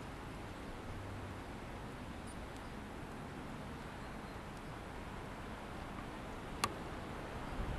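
Steady outdoor background noise of a railway platform, with no train present, and a single sharp click near the end.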